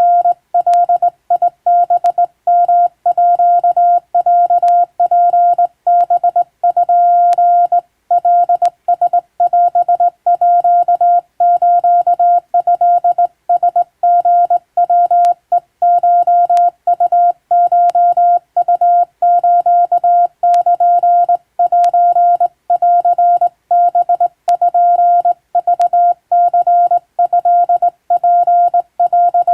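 Hand-keyed Japanese (wabun) Morse code: a single steady tone switched on and off in short dits and longer dahs, grouped into characters with short gaps between them. A faint click comes through now and then.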